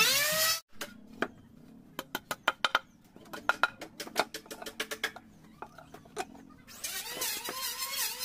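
A handheld wood router runs loudly, its pitch rising, and cuts off abruptly about half a second in. Then come scattered sharp clicks and knocks of timber boards being handled and marked on the bench. Background music starts near the end.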